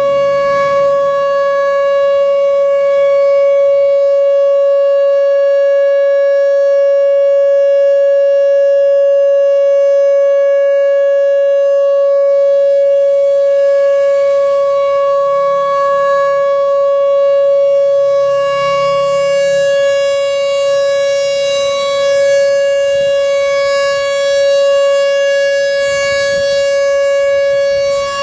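Whelen Vortex R4 outdoor warning siren sounding its steady Alert signal: one held pitch that does not rise or fall, loud throughout, its brightness and level swelling and easing slightly in the second half.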